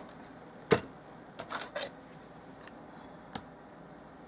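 Small knocks and clicks of craft supplies handled on a work table: a sharp click at the start, a louder knock just under a second in, a quick run of clicks about a second and a half in, and one more click near the end.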